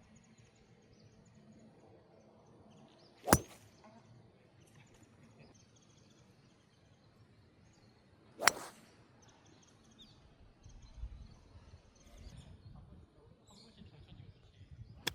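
Golf club striking a ball twice, two sharp cracks about five seconds apart, with a short click near the end. A low rumble of wind on the microphone runs underneath.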